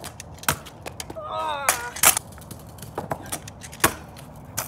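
Kick scooter clattering on a concrete sidewalk by a small wooden kicker ramp: a run of sharp clacks from the deck and wheels hitting down as the rider hops and lands. A short vocal exclamation falls in pitch about a second in.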